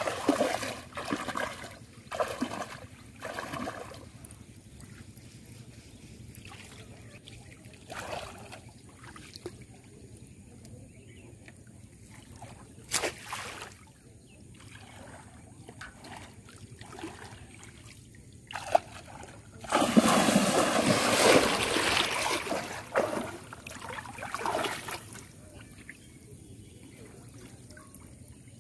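Shallow floodwater splashing as a person wades through it: a few sloshing steps at the start, small trickles and splashes after, then a longer spell of loud splashing about twenty seconds in.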